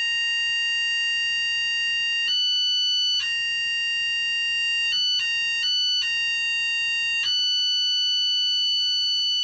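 Ignition timing light's steady electronic tone, switching between a lower and a higher pitch several times as the distributor is turned back and forth on its loosened mounting. The higher pitch marks the breaker points opening, and it holds there near the end once the points are set just open at the fully retarded timing.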